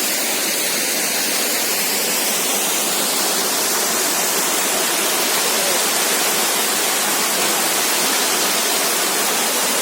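A waterfall: a steady, unbroken rush of falling water.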